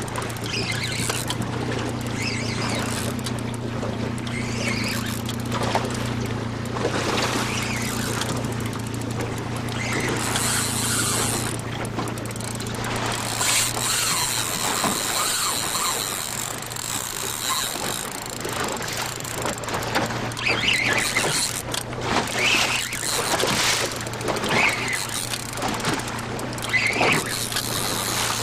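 A spinning reel's drag whining at times as a hooked mack tuna pulls line off, over the steady hum of an idling boat engine and wind noise.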